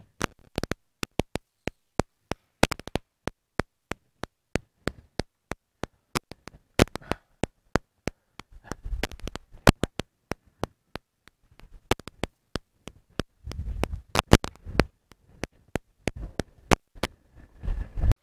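Footsteps clicking on a hard floor, about two steps a second, as people walk to the lectern and the chair. A few duller low knocks and thumps come in among them in the second half.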